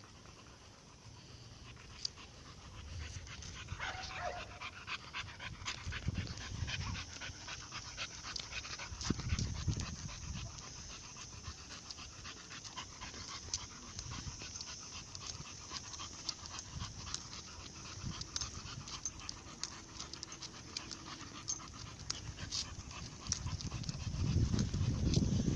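Dog panting as it walks, with many quick, light clicking steps on the road. A louder low rumble comes in near the end.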